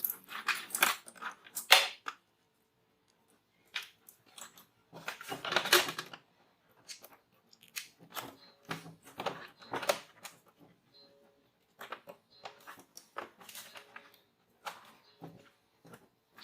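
Hard drive SATA power and SSD cables being handled and plugged in: irregular clusters of plastic clicks, crackles and rustling, with short silent gaps between them.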